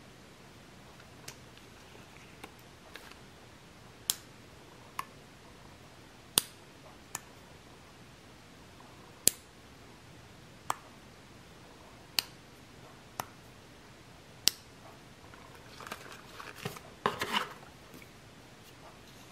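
A small metal snap clip for clip-in hair extensions, snapped open and shut by hand: about a dozen sharp clicks a second or so apart. Rustling and handling noise near the end.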